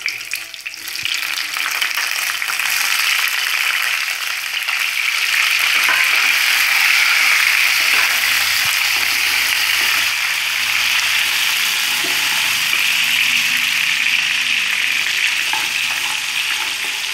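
Raw mutton pieces sizzling steadily in hot mustard oil in a wok as they go in, building up about a second in, while a spatula stirs and scrapes them around the pan.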